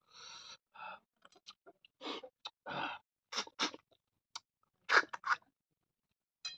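Eating cooked river snails by hand: a string of short sucks, slurps and lip smacks with small clicks, the loudest about five seconds in.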